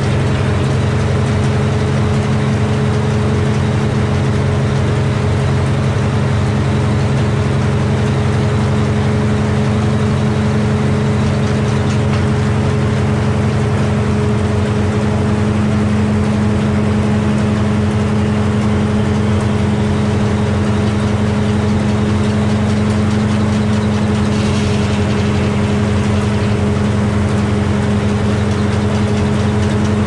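Antique Frick sawmill running: its drive engine runs at a steady speed while the circular saw blade and flat drive belts spin, a loud, even mechanical hum with a few held tones.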